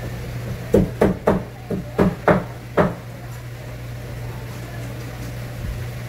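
About seven sharp knocks on a wooden cutting board in quick succession, typical of a knife or fish striking the board during filleting, over a steady low hum.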